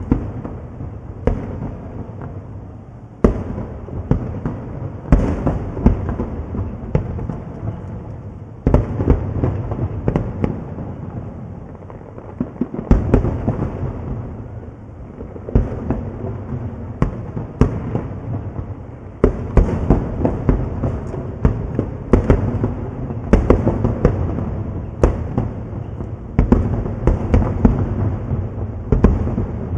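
Fireworks display: aerial shells bursting one after another, dozens of sharp bangs over a continuous low rumble of echoing explosions.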